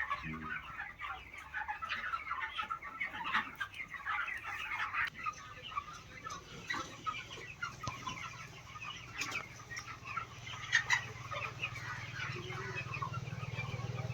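A large flock of young broiler chickens clucking and cheeping together, a dense, continuous chatter of many birds. A low steady hum rises in about halfway through.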